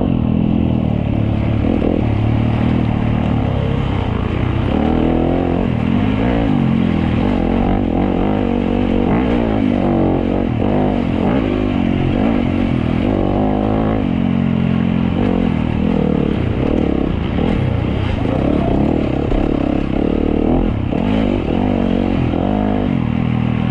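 Dirt bike engine revving up and down continuously with the throttle as the bike rides a twisting trail.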